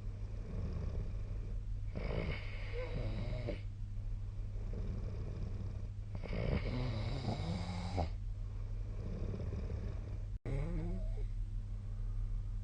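A sleeping person snoring, three snores about four seconds apart, each a rough breath with a wavering pitch, over a steady low hum.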